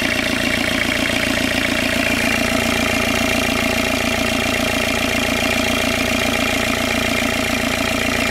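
Fiat 1.7 TD four-cylinder turbodiesel idling steadily, running evenly just after being restarted following a jumped timing belt.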